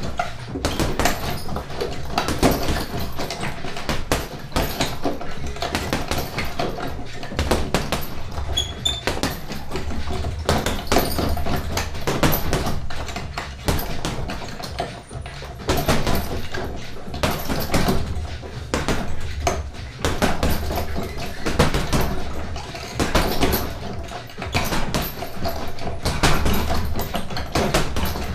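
Boxing gloves punching a hanging heavy bag: repeated thuds in quick combinations, with short pauses between runs.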